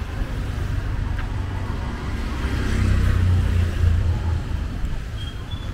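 Street traffic running steadily, with a motor vehicle passing close that is loudest about halfway through.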